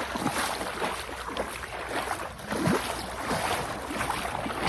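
Wind buffeting the microphone over water washing at the shoreline, with scattered small splashes and knocks.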